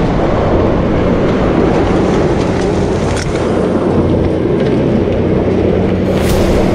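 Jeep Gladiator Rubicon's V6 engine running hard under load as the truck drifts with its tyres spinning on loose gravel, mixed with a dense, steady noise of gravel and dirt spraying.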